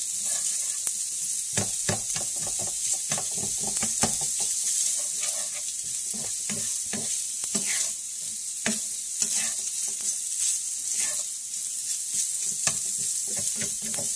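Cooked ground beef sizzling in fat in a frying pan while being stirred. A steady frying hiss runs under repeated short scrapes and taps of the utensil against the pan.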